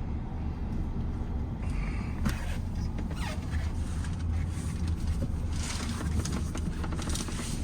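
Low, steady rumble of a Maruti Suzuki Grand Vitara SUV driving slowly over rough off-road ground, with scattered light clicks and rattles from about two seconds in.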